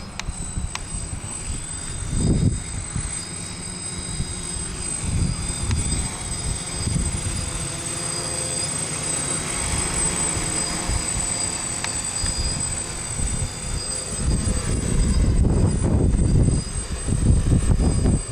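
DJI F550 hexacopter's electric motors and propellers whining steadily in flight, with low rumbling gusts on the microphone; the owner says its motor bearings are bad.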